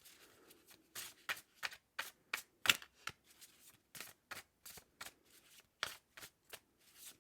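A deck of tarot cards being shuffled by hand: a run of short, sharp card snaps and slaps, with the loudest about two and a half seconds in.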